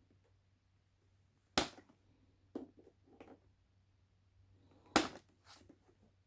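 Two sharp snaps about three seconds apart, with a few lighter knocks and clicks between them, from hands working on the parts of a 3D printer during assembly.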